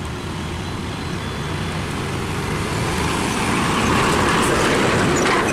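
Truck engine running steadily, growing gradually louder.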